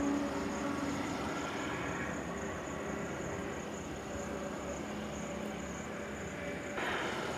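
Heavy truck engine running steadily, a low rumble with a faint hum, under a thin, steady high-pitched whine; the noise swells briefly near the end.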